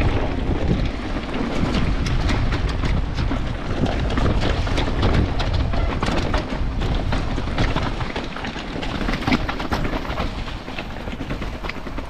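Mountain bike descending a rough, wet slate trail: heavy wind buffeting the microphone, with tyres rumbling and the bike rattling and knocking over rocks throughout.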